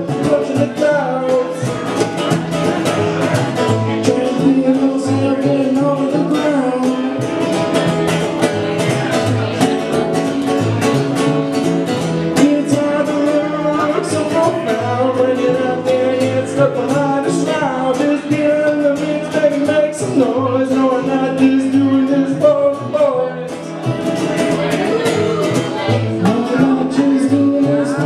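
Live acoustic music: a strummed acoustic guitar and a plucked upright double bass, with a man singing over them.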